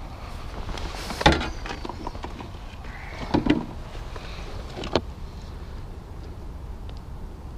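Three sharp knocks over a steady low rumble, the loudest about a second in, the others near the middle.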